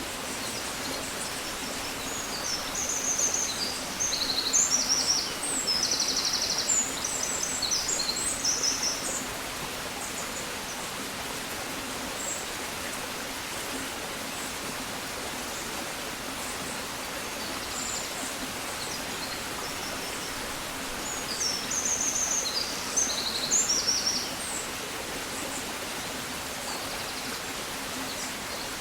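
Songbirds singing in two bouts of high chirps and rapid trills, one lasting about seven seconds from a couple of seconds in and a shorter one near the end. They sing over a steady, even rushing hiss.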